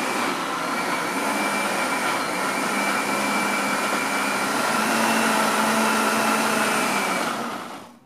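Countertop blender running steadily, mixing a thick batter of sweet tapioca starch, eggs, oil and milk. It is switched off and winds down just before the end.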